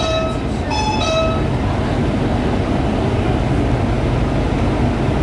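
Short electronic warning beeps in alternating pitch, the door-closing signal of a Shanghai Metro Line 11 train standing at the platform, stop about a second in. After that there is only the steady hum of the train's interior.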